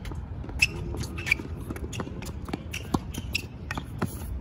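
Tennis rally on a hard court: several sharp pops of racket strikes and ball bounces, with sneakers scuffing and squeaking between shots.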